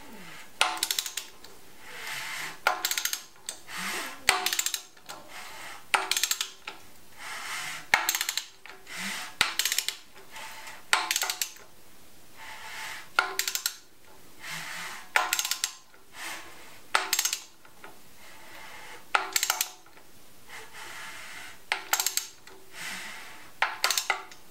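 A ratchet on the crankshaft bolt of a rebuilt Saab engine, worked by hand in repeated strokes to turn the engine over. A cluster of sharp ratchet clicks comes about every two seconds, between short stretches of rubbing noise from the turning valvetrain. It is a check that the newly timed camshafts and chain turn smoothly without anything interfering.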